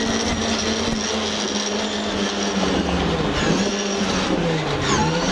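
Ford Escort RS2000 Mk2 rally car's four-cylinder engine heard from inside the cabin, running hard at steady high revs, then dropping in pitch as the car brakes hard. The pitch dips twice in the second half, with sharp clicks around each dip, as it is shifted down for a tight turn.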